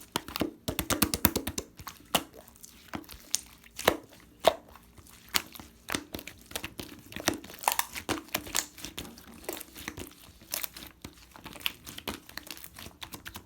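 Hands playing with slime: a continual run of small crackles and popping clicks as it is pressed and stretched.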